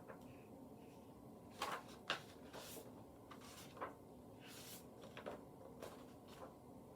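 Faint rustles and light clicks of a hardcover picture book being handled and its pages turned, a few separate strokes spread over several seconds.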